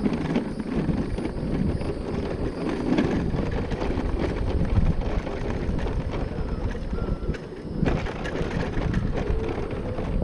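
Electric mobility scooter rolling along a rough asphalt road: a steady rumble of small tyres, with scattered knocks and rattles, and wind buffeting the microphone.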